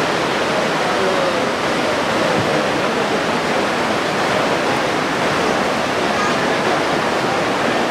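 River water rushing over shallow rocky rapids: a steady, loud rush of white water.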